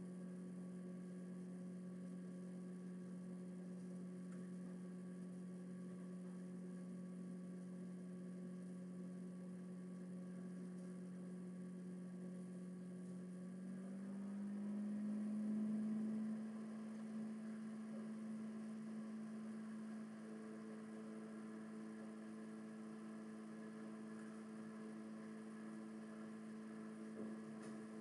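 A steady low hum that steps up slightly in pitch about halfway through, swelling briefly as it does, then holds steady at the higher pitch.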